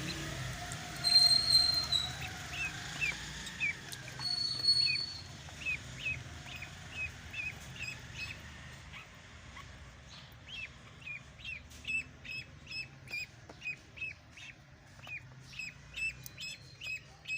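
A duckling peeping over and over, short falling peeps about two a second. In the first few seconds a louder, steady high whistle sounds three times.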